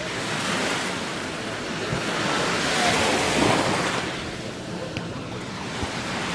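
Gulf surf washing onto the beach: a wave breaks and swells to its loudest about halfway through, then ebbs away.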